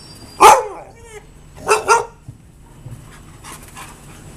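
Dogs barking in play: one loud bark about half a second in, then two quick barks near the two-second mark, and fainter barks later.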